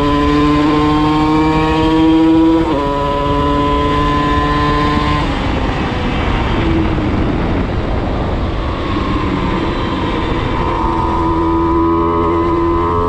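Simson's tuned 85cc two-stroke reed-valve engine with a custom expansion-chamber exhaust pulling hard, its pitch climbing, then dropping sharply at an upshift about two and a half seconds in and climbing again. Around five seconds in the steady tone breaks up into a rough, uneven running as the throttle eases. It settles into a steady cruise near the end.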